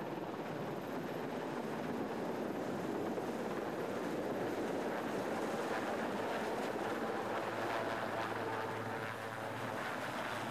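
Helicopter flying overhead and coming in to land on a ship's deck: a steady rushing noise of rotor and engine.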